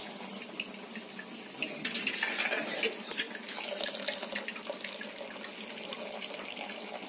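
A metal ladle scoops boiled rice out of its cooking water in an aluminium pot, with wet splashing and dripping and small clinks of metal. It is loudest about two to three seconds in.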